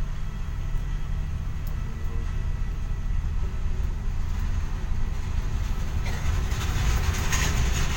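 Steady low rumble of a vehicle cabin, heard from inside an airport apron shuttle bus as it drives along the apron. A hiss swells in over the last two seconds.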